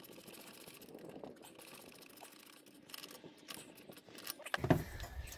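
Faint clicks and light metallic handling as the golf cart solenoid's mounting nuts and hardware are fitted by hand, with a few sharper ticks toward the end and a louder knock near the end, followed by a low rumble.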